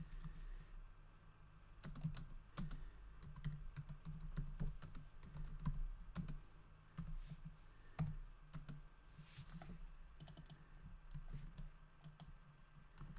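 Typing on a computer keyboard: irregular runs of key clicks starting about two seconds in, with a brief pause around seven seconds.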